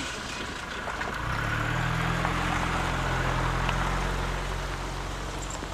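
Minibus engine pulling away: a steady low engine hum that swells about a second in and fades toward the end as the vehicle drives off.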